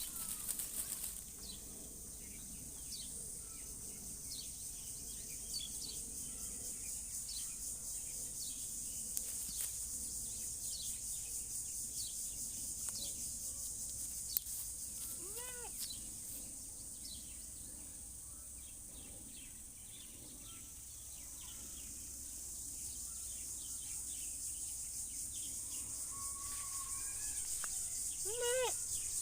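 Goat bleating twice, short calls with a rising-then-falling pitch, about halfway through and again near the end. Under it a steady high insect drone and scattered bird chirps.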